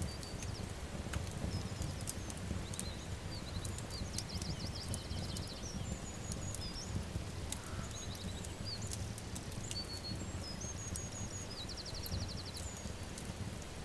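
Wood fire crackling, with sharp pops scattered over a steady low rumble. Songbirds chirp and give short high trills of rapidly repeated notes, twice in the middle and near the end.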